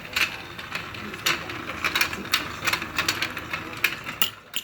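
Motorized toy fishing game running: its small motor whirring under an irregular run of light plastic clicks and rattles from the turning pond and fish.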